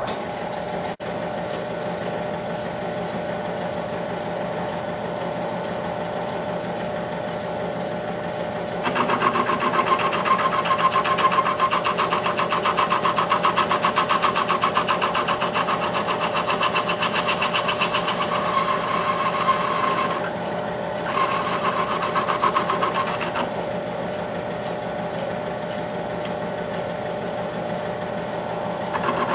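South Bend 10-inch lathe running with a boring bar in the bore of a Ford 9N governor arm held in a four-jaw chuck, making a steady machine hum. About nine seconds in it grows louder with a ringing whine as the bar cuts, breaks off briefly near twenty seconds, and drops back to the plain hum a few seconds later.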